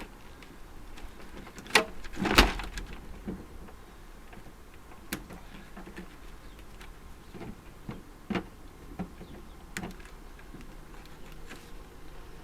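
Scattered sharp clicks and snips, with two louder knocks about two seconds in: hand cutters and metal parts at work as wiring is cut out of a portable air conditioning unit.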